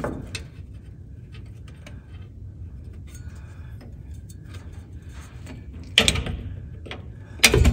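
Hand tools and metal parts being handled at a drum brake's rear wheel cylinder: scattered small clicks and taps, with a sharp knock about six seconds in and a louder one near the end.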